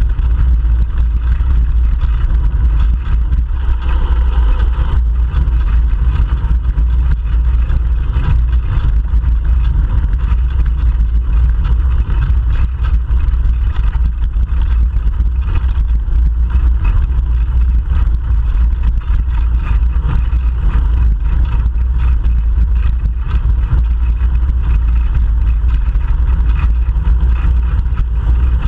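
Steady low rumble of wind buffeting and road vibration on a GoPro Hero 3 Black action camera riding on a moving bicycle.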